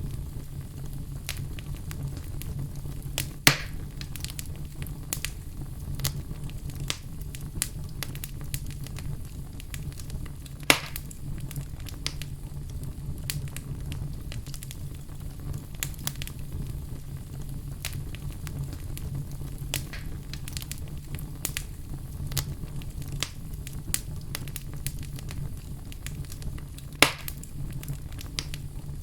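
Fireplace fire crackling, with frequent small snaps and three much louder pops spread through, over a steady low background.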